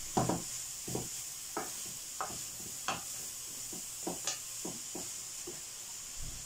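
Wooden spatula stirring and scraping runner beans with grated coconut around a hot non-stick frying pan, in short uneven strokes about two a second, over a steady light sizzle of the oil.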